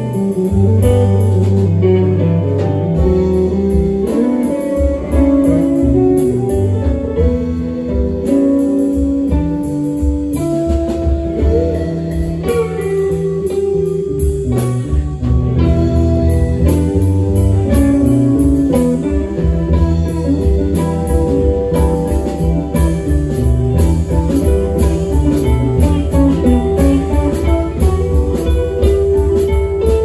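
Live rock band playing: electric guitar lines over bass guitar, drums and keyboard.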